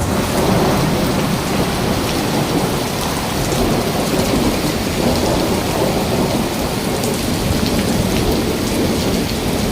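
Heavy rain pouring down, a loud, steady rush of drops on surfaces with no letup.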